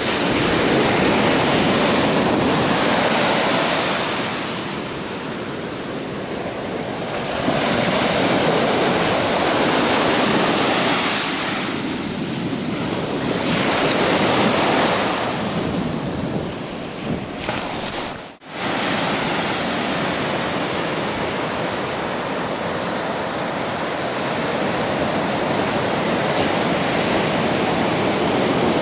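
Ocean surf breaking and washing up a sandy beach, swelling and fading with each wave. After a sudden cut about two-thirds of the way through, a steadier rush of surf.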